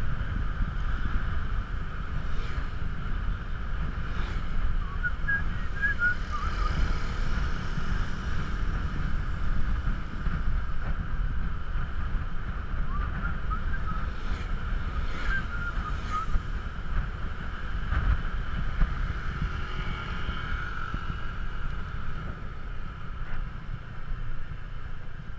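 Scooter riding along a road: the engine runs steadily under wind buffeting the camera's microphone, with a few short high chirps about five seconds in and again around a quarter of a minute in.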